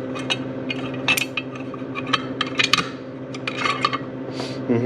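Small metal parts clinking and clicking as they are handled, in quick irregular taps, over a steady low machine hum.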